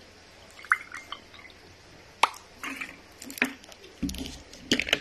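An orange drink poured from a plastic bottle into a glass tumbler: a few separate drips and splashes with short sharp knocks between them.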